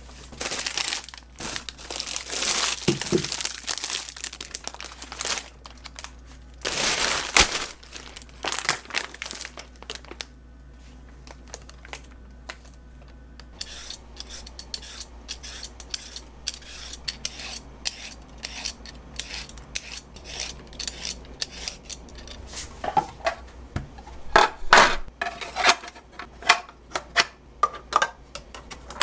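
Plastic packaging crinkling and tearing in dense bursts for the first several seconds. Then a quieter run of quick scraping strokes from a Y-peeler on a carrot, and near the end sharp clacks of plastic parts as a mandoline slicer is fitted together.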